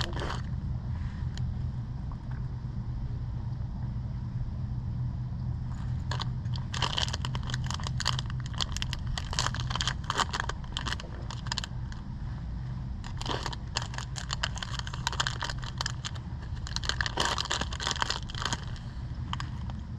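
Road bike rolling along the road: a steady low rumble from the tyres, with clusters of sharp clicking and rattling from about six seconds in, as over rough pavement.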